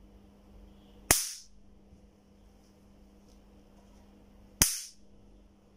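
Electronic bug zapper's high-voltage grid arcing to a screwdriver, two sharp zaps about three and a half seconds apart, over a faint steady hum. The sparks show the voltage multiplier is putting out high voltage again across the grid.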